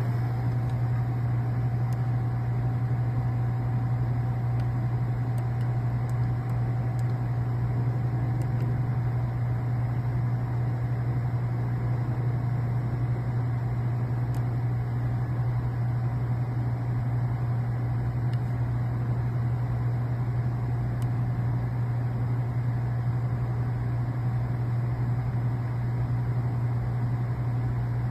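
Glass door merchandiser refrigerator running with a steady low hum.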